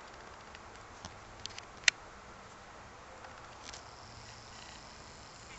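Quiet outdoor ambience by open water: a faint steady hiss broken by a few light clicks and one sharp click just under two seconds in.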